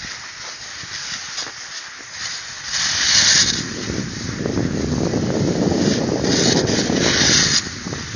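Cross-country skis hissing over packed snow: loud swishes about three seconds in and again around six and seven seconds, with a low rushing noise building from about the middle.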